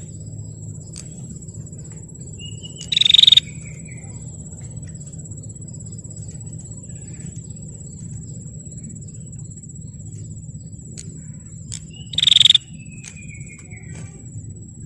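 Prinia (prenjak) giving two short, loud rattling calls about nine seconds apart, each followed by a thin, slightly falling whistle; this is the rapid 'ngetir' rattle that bird keepers attribute to the female. A steady high-pitched buzz and a low hum run underneath.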